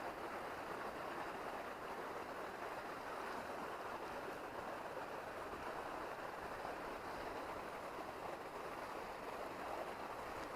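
River water flowing over a riffle: a steady, even rushing with no other events.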